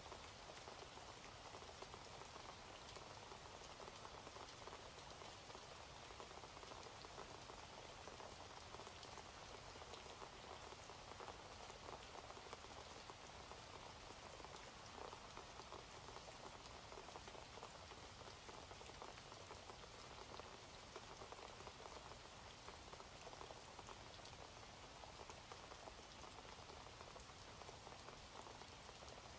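Faint, steady rain with no pauses or changes.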